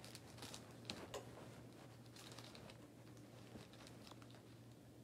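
Near silence: faint room tone with a steady low hum and a few soft clicks and rustles, the clearest in the first second and a half.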